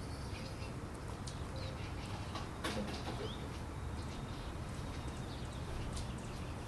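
Small birds chirping in short, high chirps and ticks over a steady low rumble, with a single knock partway through.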